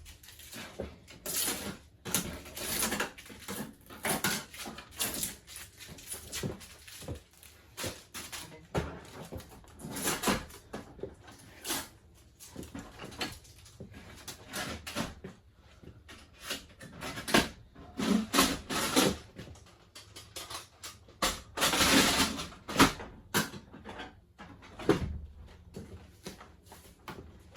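Irregular rustling, scraping and knocking of packaging being handled while a printer is unboxed, with busier handling about two-thirds of the way in.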